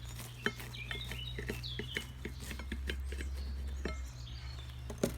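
Campfire crackling with scattered small pops and a sharper pop near the end, while small birds chirp.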